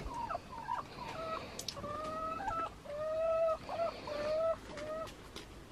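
Domestic hens calling: a string of drawn-out clucking calls, one after another, fading near the end.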